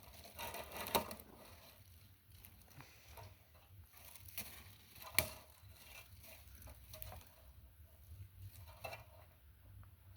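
Faint rustling and crackling of dry thorny twigs being handled for kindling, with one sharper snap about five seconds in.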